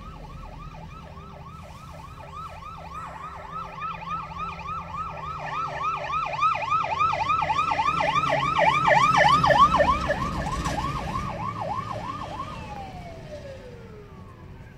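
Emergency vehicle siren in a fast yelp, about three sweeps a second. It grows louder to a peak about two-thirds of the way through, then fades and winds down with a falling tone near the end. A low engine rumble swells along with it.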